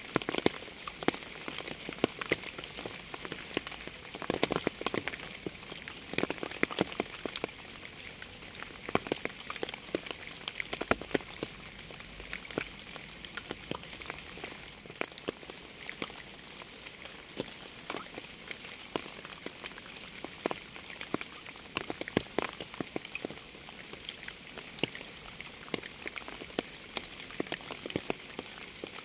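Steady rain, with a dense scatter of separate drops striking close by over an even hiss.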